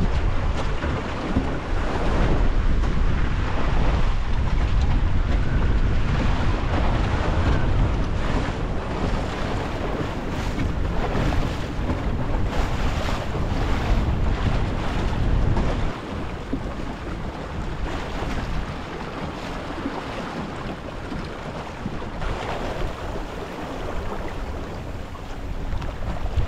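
Wind buffeting the microphone over water rushing and splashing past the hull of a small sailing dinghy under way in a fresh breeze. Partway through, the low wind rumble drops and the water sound carries on more quietly.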